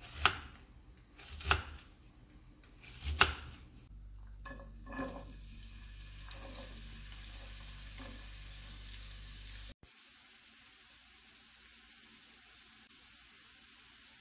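A kitchen knife cuts through an onion on a wooden cutting board: three sharp chops. Then diced onion is scraped into a hot oiled frying pan with a few light knocks, and it sizzles steadily.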